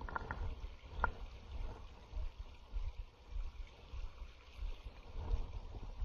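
Spinning reel being cranked on a retrieve, with a few light clicks near the start and a sharper tick about a second in, over a low rumble and the faint rush of a small stream.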